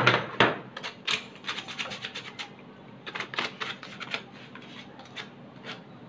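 Cut PVC pipe fan blades being rubbed smooth by hand, a run of irregular scratchy strokes, busiest in the first couple of seconds and sparser after.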